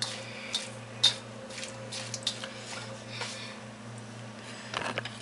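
Tongs tossing rice noodles and vegetables in a wok: soft squishing with scattered clicks of the tongs against the pan, over a steady low hum.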